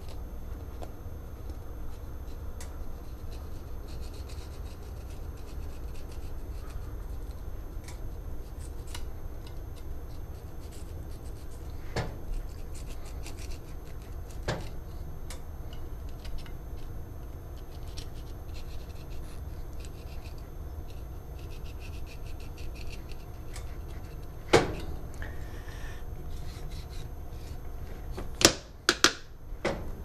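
Knife scraping and slicing through a whole blackfin tuna on a plastic cutting board, with soft rubbing and ticking over a low steady hum. Occasional sharp knocks of knife or fish on the board, the loudest about 25 seconds in, and a quick run of sharp hits near the end.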